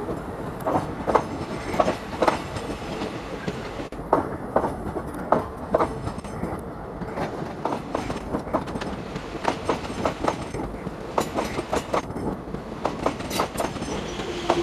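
Passenger train coaches rolling past on the next track, their wheels clicking and clanking irregularly over the rail joints over a steady rumble.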